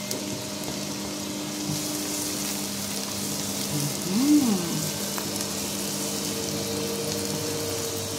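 Chopped onion sizzling steadily in hot oil as it is sautéed with garlic and ginger, stirred with a silicone spatula, over a steady low hum. A short rising-and-falling pitched sound comes about four seconds in.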